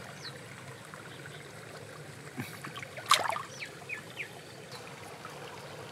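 Shallow stream water trickling steadily, with a sharp splash about three seconds in and a few smaller splashes after it as hands work in the water.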